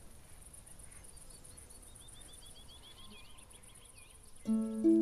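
Nature-sound intro of a song: a bird giving a quick run of repeated chirps in the middle, over a faint steady high hiss. Near the end plucked-string music comes in sharply and is the loudest sound.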